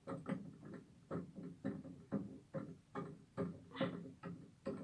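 Plastic parts of a toilet cistern's push-button flush mechanism clicking and knocking as they are handled and fitted, about three light clicks a second.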